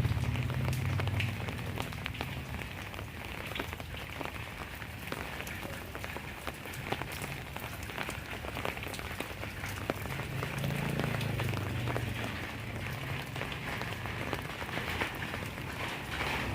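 Steady rain falling, with many sharp individual drop ticks over an even hiss. A low hum swells and fades a little past the middle.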